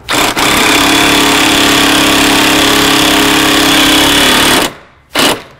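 Cordless impact wrench hammering a nut tight on the nose saver's through-bolt for about four and a half seconds, then a short second burst near the end.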